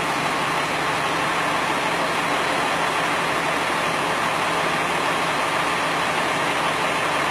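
A fire truck's engine running steadily: an even, unbroken noise with a low hum underneath.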